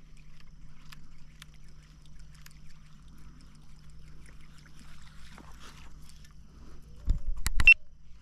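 Handling noise on a plastic sit-on-top kayak: faint scattered ticks, then a short burst of knocks and bumps on the hull about seven seconds in.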